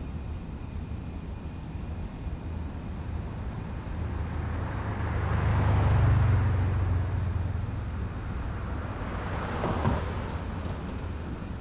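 Factory exterior ambience: a steady low industrial hum. A louder swell of noise builds and fades around the middle, and a shorter one comes near the end.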